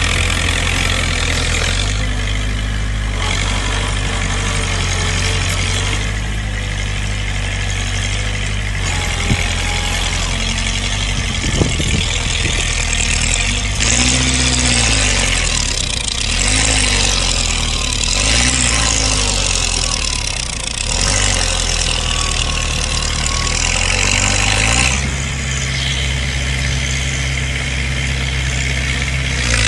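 Heavy diesel engines of earthmoving machinery, a bulldozer and dump trucks, running steadily. In the middle an engine revs up and down about four times, and there are two short knocks a little before that.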